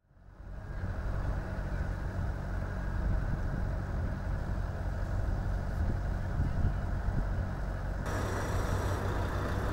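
Steady low outdoor rumble by the sea, with no clear single source. It fades in at the start and changes character about eight seconds in.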